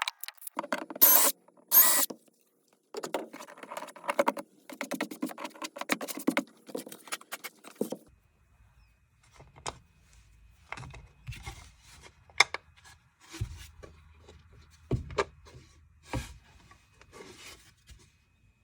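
Small hardware handled and fitted by hand: a bolt and acorn nut clicking, knocking and rubbing against plastic mounting parts. After about eight seconds the clicks grow sparser over a low hum.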